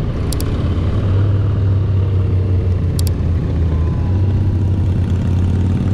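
2018 Honda Goldwing's flat-six engine running steadily on the move, a constant low hum under road and wind noise. Two brief high-pitched ticks come about half a second and three seconds in.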